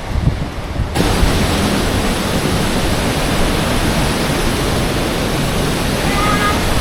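Heavy surf on a stormy sea: a dense, steady rush of breaking waves that jumps louder about a second in.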